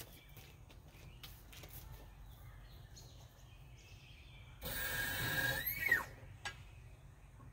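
Daytona hydraulic floor jack letting a car's front end down through its release valve: a hiss lasting about a second and a half, with a whistling tone that rises and then drops sharply as it cuts off. A single knock follows shortly after.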